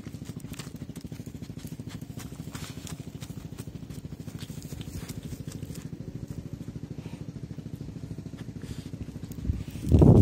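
Dog sniffing hard into a field-mouse burrow, a rapid, even run of snuffles with its nose in the hole. It gets much louder near the end.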